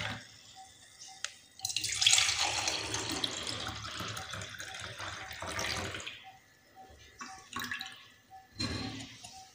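Beetroot juice poured from a steel vessel into a glass. The splashing pour starts about one and a half seconds in, is loudest at first and tails off over about four seconds. It is followed by a few light knocks as the glass is handled.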